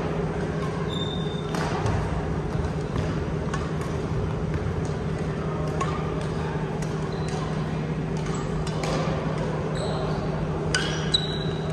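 Badminton rally: several sharp racket hits on the shuttlecock, with short high squeaks of sneakers on the hardwood court, over a steady hum in the hall.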